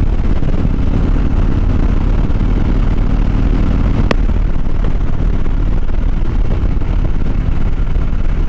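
2014 Harley-Davidson Dyna Fat Bob's air-cooled V-twin running steadily at cruising speed, heard from the rider's helmet together with wind on the microphone. A brief click about four seconds in.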